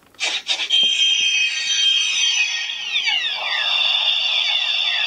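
CSM Altering (Kamen Rider Agito transformation-belt toy) playing its electronic transformation sound effect through its speaker. It starts about a second in as a sustained high shimmering tone, and from about three seconds in it adds repeated falling chirps.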